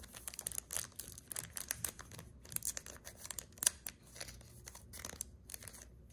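Foil wrapper of a Pokémon trading-card booster pack crinkling and tearing as it is opened by hand. A dense run of sharp crackles, with one louder snap a little past halfway.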